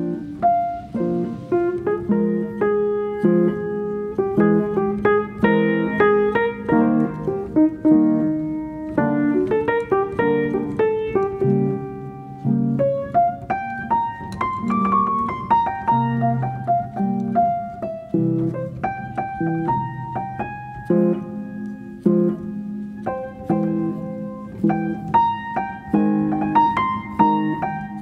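Background music on piano: a melody of struck notes over low chords, running continuously.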